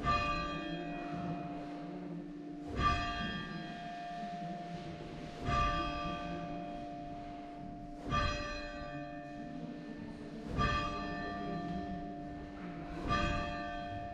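A single bell tolling slowly and evenly, six strokes about two and a half seconds apart, each stroke ringing on into the next.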